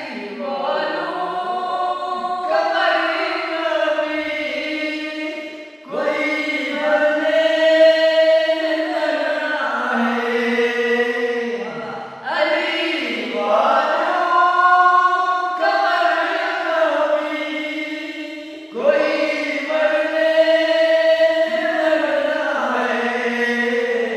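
Several men singing a manqabat, a devotional song in praise of Imam Ali, together with voices only. It goes in long held phrases, with short breaks for breath about every six seconds.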